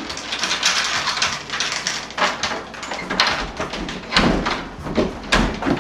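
Rustling and handling noises with a scratchy hiss, broken by several dull knocks in the second half.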